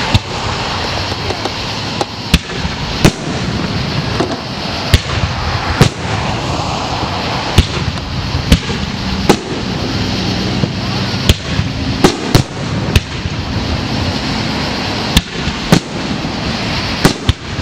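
Aerial firework shells bursting in a fireworks display: about fifteen sharp bangs at uneven intervals, some in quick pairs, over a steady background hiss.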